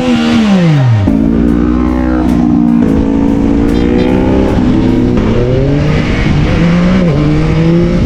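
Yamaha XSR900's inline three-cylinder engine under way. Its note falls during the first second, then climbs slowly with several sudden jumps in pitch, as with gear changes.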